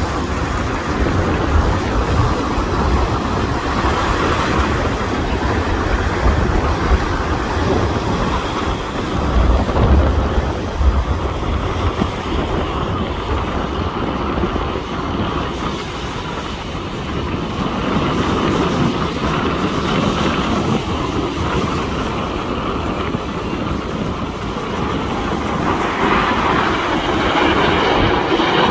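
Jet engine noise from a formation of aerobatic jets flying past, a steady deep roar that swells about a third of the way in and again near the end.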